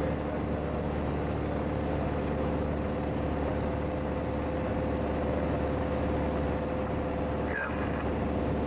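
Steady drone of a Piper light aircraft's piston engine and propeller in cruise, heard inside the cabin, with a constant hum of several steady tones over a rushing noise.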